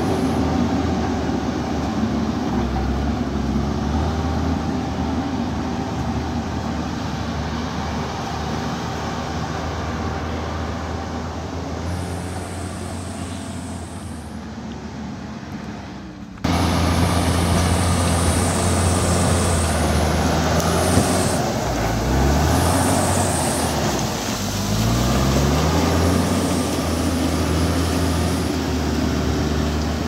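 JCB backhoe loader's diesel engine running as the machine drives off along a dirt road, growing fainter. About halfway through it is abruptly louder and close by, revving up and down twice as the front bucket pushes dirt.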